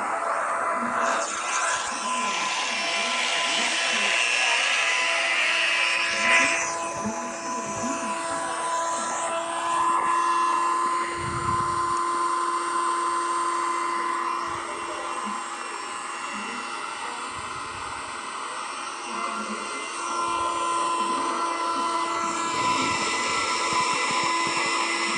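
Homemade CNC machine running, its motors whining in several steady tones that change pitch every few seconds as the machine moves.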